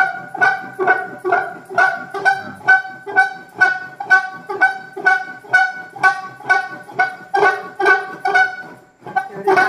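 A kolambi vessel beaten over and over with the handle of a wooden ladle, a little over two ringing strikes a second, with a brief stop near the end before it starts again. It is the rhythmic beating done to 'open the ears' of the Gauri goddess.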